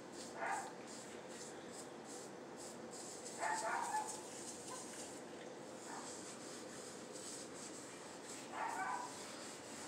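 A sponge scrubbing a tiled countertop, with short, high, squeaky yelps on top: one about half a second in, one near four seconds, a faint one at six, and one near the end.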